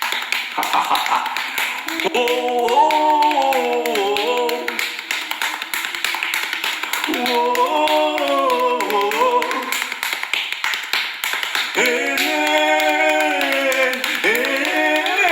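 A voice chanting or singing three long wordless phrases with the pitch bending, over continuous rapid tapping and clapping.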